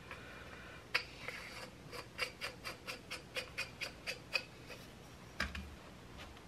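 Faint clicks of metal shock-absorber parts handled by hand as the cap is fitted onto a pit bike rear shock body: one click about a second in, then a quick run of about a dozen clicks, roughly four or five a second, and a last click with a dull knock near the end.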